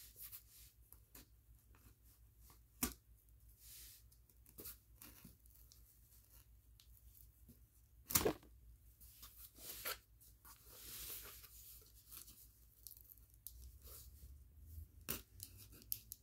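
Tape on a cardboard box being slit with a kitchen knife and torn, in short scratchy strokes with scattered knocks and clicks from handling the box; the loudest knock comes about eight seconds in.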